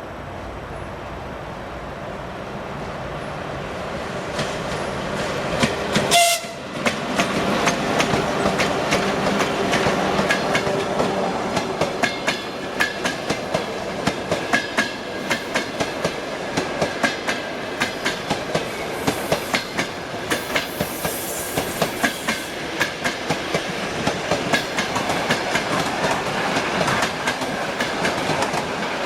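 A ChS7 electric locomotive hauling a passenger train, its rumble growing as it approaches. It gives a short horn blast about six seconds in, then the coaches roll past with a steady clickety-clack of wheels over the rail joints.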